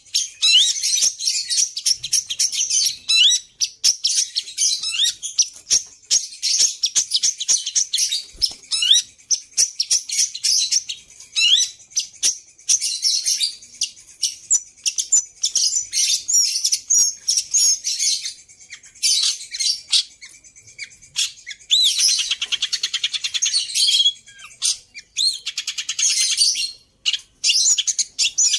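Long-tailed shrike (pentet) singing a fast, varied song of high chirps, short rising whistles and chatter, mixing in mimicked notes it has been trained on. Twice near the end it breaks into rapid trills.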